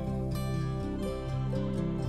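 Gentle background music with held notes and soft note changes.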